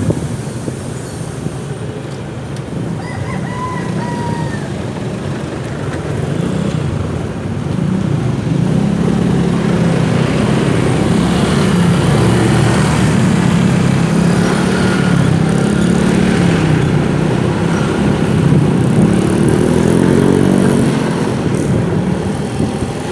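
Motorcycle engine running on the road, its pitch rising and falling as it speeds up and eases off, louder from about eight seconds in. A rooster crows briefly a few seconds in.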